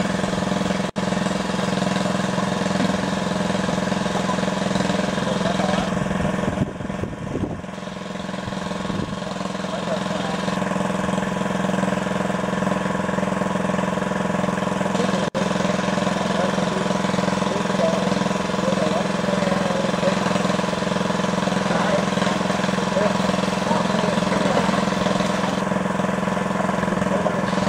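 A small engine running steadily at one constant speed, with faint voices over it.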